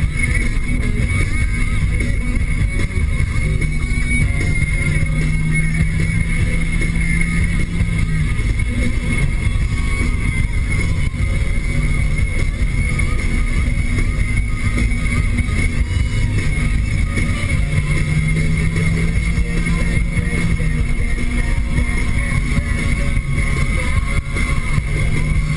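Cabin sound of a 2013 Nissan Sentra SR under way: its engine and CVT running at steady revs under a constant rush of tyre and road noise. A low drone swells in a few times, roughly a third of the way through, again two-thirds of the way through, and near the end.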